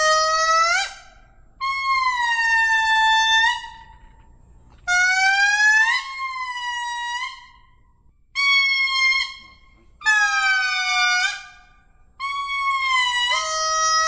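Lemur calling: a series of about six clear, pitched calls, each held for one to two seconds with short pauses between, the pitch gliding up on some and down on others.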